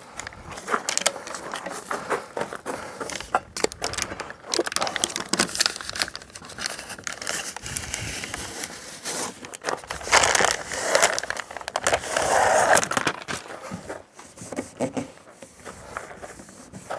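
Foil-faced bubble insulation crinkling and crackling as it is wrapped around a stainless steel sink bowl and pressed on by hand, in irregular bursts that are loudest about two-thirds of the way through.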